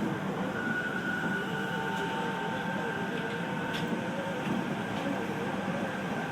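Running sound inside a Keio 5000-series train at speed: a steady rumble of wheels on the rails with a few faint steady tones over it.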